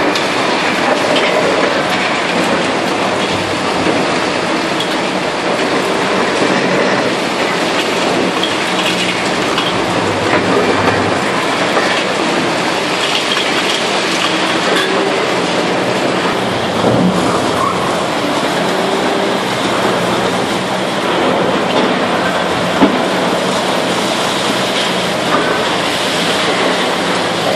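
Demolition excavators with hydraulic crusher jaws, a Liebherr 954 among them, breaking up reinforced concrete: a steady din of crunching concrete, clanking steel and falling rubble, with a sharp knock near the end.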